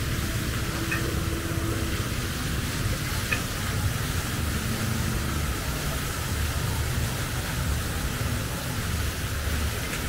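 Steady background noise: a low rumble under a continuous hiss, with a couple of faint short high chirps about one and three seconds in.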